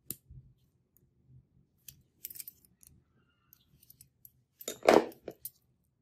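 Small metallic clicks and clacks as a brass-handled butterfly knife is worked on, a screwdriver turning its pivot screws. A louder metal clatter comes about five seconds in.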